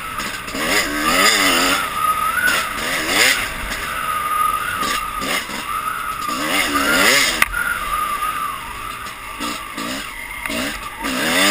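Dirt bike engine revving up and down in repeated bursts as the bike rides a trail, over a steady rush of wind and tyre noise. A single sharp knock about seven seconds in.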